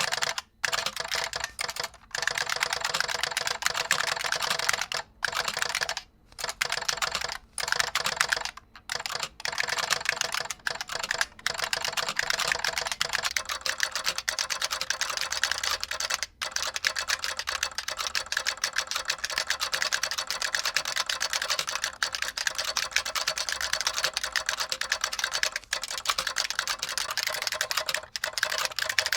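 Fast continuous typing on an IBM Model F62 buckling-spring keyboard with a solenoid fitted, the key clicks and solenoid strikes running together. There are several short pauses in the first nine seconds, then unbroken typing.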